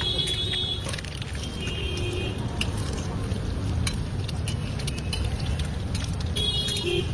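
Roadside street ambience with a steady low rumble of traffic, scattered sharp clicks of a metal spatula against an iron griddle, and a few short high-pitched tones near the start, around two seconds in and near the end.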